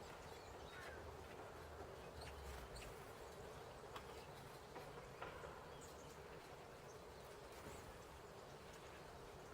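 Faint, scattered short chirps of small birds over a steady low hiss, with a couple of faint ticks near the middle.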